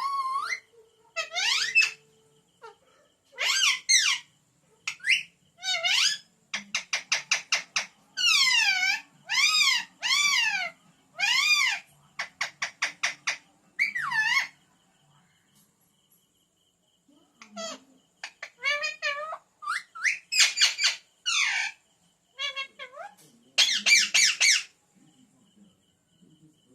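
A pet green parrot calling in loud, high, rising-and-falling squawks, with runs of rapid repeated chattering notes. It goes quiet for a couple of seconds after the middle, then calls again.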